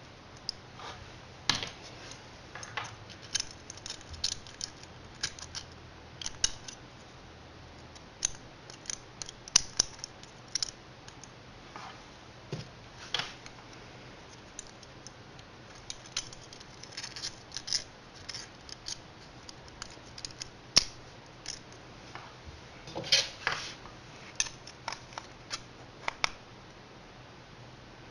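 Irregular sharp metallic clicks and clinks of hand tools and small metal parts being handled, some in quick clusters.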